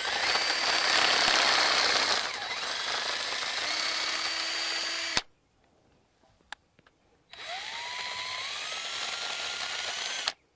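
Cordless drill boring a 7/8-inch spade bit into a 6x8 wooden post in two runs. The first lasts about five seconds and ends with a sharp click. After a pause of about two seconds, a second run has a motor whine that rises in pitch before it stops.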